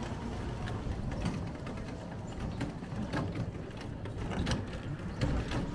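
Cycle rickshaw clicking and rattling as it is pedalled along, with irregular sharp knocks from its chain and frame over a low rumble.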